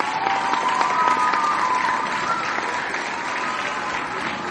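Loud, dense applause of many hands clapping, with a held tone running over it.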